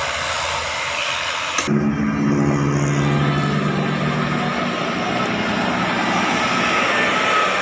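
Road vehicle engine and traffic noise. About a second and a half in the sound changes abruptly to a steady low engine hum that slowly fades.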